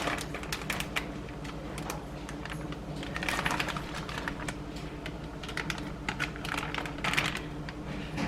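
Rapid light clicks and crinkly rustling from handling a hot plastic bag of microwaved cauliflower rice, with busier bursts about three seconds in and again near seven seconds.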